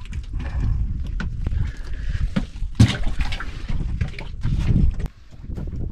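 Water sloshing and splashing around a small fishing boat, with a steady low rumble and repeated knocks, the sharpest about three seconds in.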